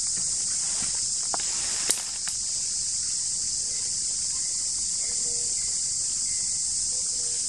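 Steady high-pitched chorus of insects in forest undergrowth, with a sharp click about two seconds in.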